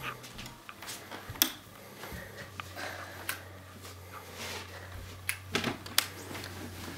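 A wall light switch clicks, then scattered light knocks and rustles follow, with a sharper knock about a second and a half in and a few more near the end, over a low steady hum.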